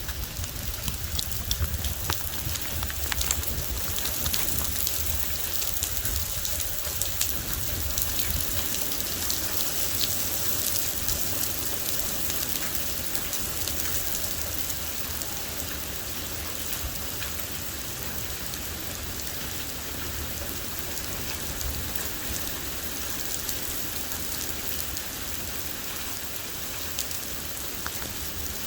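Rain falling steadily during a thunderstorm, a constant hiss dotted with many sharp drop ticks, easing slightly about halfway through.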